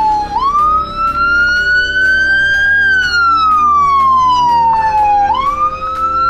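Ambulance siren wailing, its pitch sliding slowly up and down: it climbs for about two and a half seconds, falls for about two and a half, then climbs again near the end.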